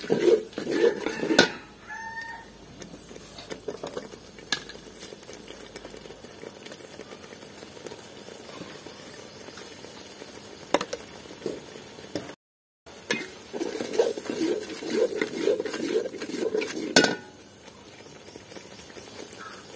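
Long steel ladle stirring and scraping in a large aluminium cooking pot of beef curry, in two spells of clattering strokes, with a quieter stretch and a few single clinks between.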